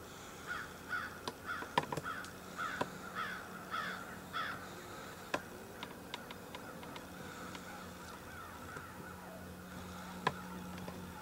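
Crow cawing: about nine harsh caws in quick succession over the first four and a half seconds, each dropping in pitch. A few sharp clicks and a faint steady hum are underneath.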